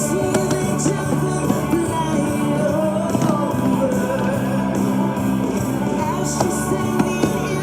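Music with singing, played loud and steady.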